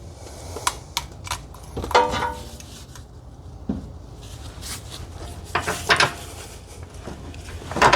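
Hand tools clinking and knocking on metal suspension parts while bolts are worked loose: irregular sharp metallic clinks, a few of them ringing briefly.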